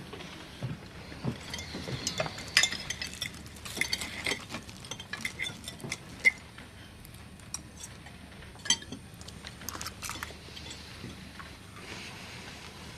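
Cutlery clinking and scraping on china plates during eating, in sharp, irregular clinks scattered throughout.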